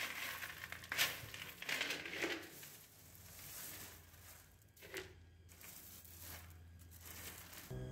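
Small white decorative pebbles poured into a plant pot, rattling and clattering over the first couple of seconds, then a hand pushing and smoothing them with softer scraping and a sharp click about five seconds in.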